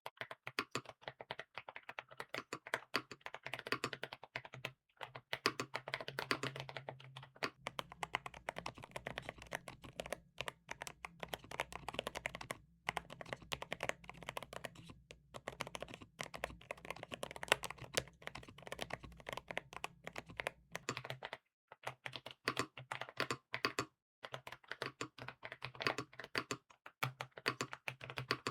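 Typing test on a Redragon Wyvern LCD Pro mechanical keyboard fitted with Cherry-profile keycaps: a fast, continuous run of key clacks broken by a few brief pauses.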